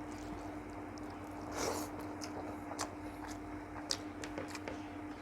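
Faint chewing and wet, squelching mouth sounds of someone eating rice with egg curry. There is a soft squish about one and a half seconds in and a few small clicks, over a steady low hum.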